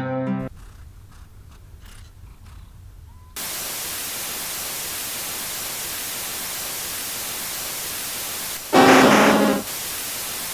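Background music ends just after the start, followed by a few quieter seconds. About three and a half seconds in, steady TV static hiss cuts in suddenly and holds, with a louder, distorted burst lasting about a second near the end.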